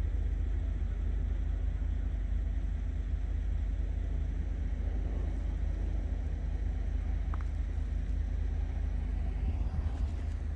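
Steady low rumble of an idling diesel engine, unchanging throughout.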